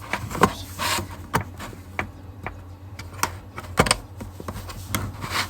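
Scattered small plastic clicks and knocks from a battery smoke alarm being handled while its slider is pushed to open the battery drawer, with the loudest knock nearly four seconds in.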